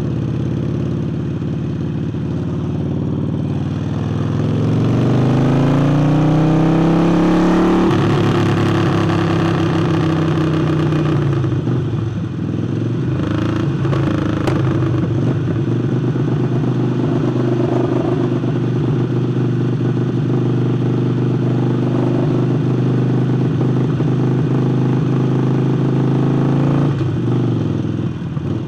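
Harley-Davidson Forty-Eight's 1200 cc V-twin, fitted with a new air intake, running under way. About four seconds in the revs climb through a gear, drop at a shift, and then hold steady at cruise until the engine eases off near the end.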